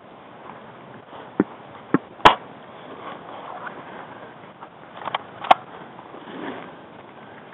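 Handling noise from a body-worn camera as its wearer clambers over fallen logs and dry leaves: a few sharp knocks and clicks, the loudest a little over two seconds in, with scraping and rustling in between.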